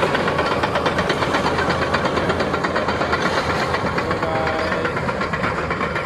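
Shantui SD22F crawler bulldozer's diesel engine running as the dozer drives off, with a steady, rapid, rhythmic clatter from the machine and its steel tracks.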